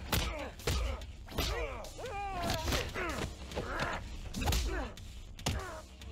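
Hand-to-hand fight: a string of heavy blows and body impacts, with men grunting in effort between them.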